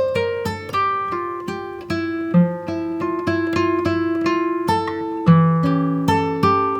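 Background music: acoustic guitar with plucked notes.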